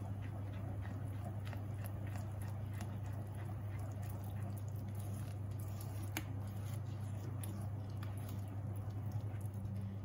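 Silicone spatula stirring thick chocolate brownie batter in a glass bowl: soft wet squelching and scraping with light taps against the glass, over a steady low hum.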